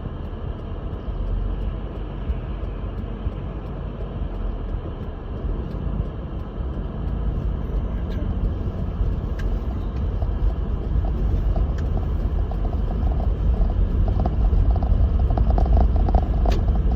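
Lexus GX470 SUV driving through snow, heard from inside: a steady low rumble of engine and tyre noise that slowly grows louder, with a few faint clicks.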